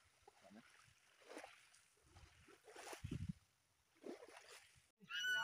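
Faint, intermittent sloshing and splashing of shallow sea water as people move through it. Near the end there is a sudden jump to louder voices with a high rising cry.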